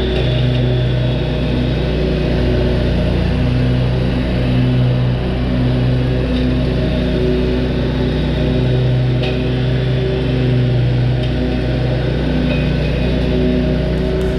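Exmark Lazer Z zero-turn mower's engine running steadily as it cuts grass, its hum swelling and fading every second or two.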